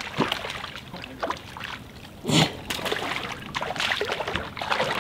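A hooked crappie thrashing and splashing at the water's surface as it is reeled in, in irregular bursts with one louder burst a little over two seconds in.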